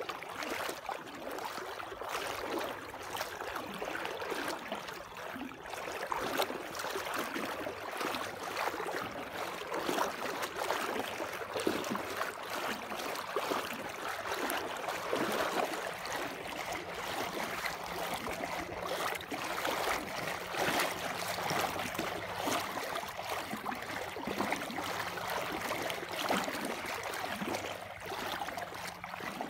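Water rushing and gurgling steadily, typical of a flood-swollen channel, with a faint low hum underneath.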